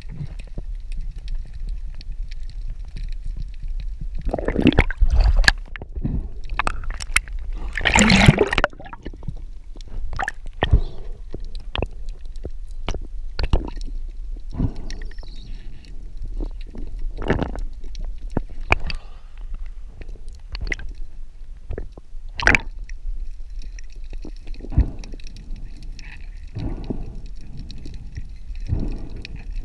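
Water sounds heard underwater through a camera housing as a spearfisher swims: a steady low rumble with scattered clicks and knocks. There are two louder gurgling rushes about four and eight seconds in.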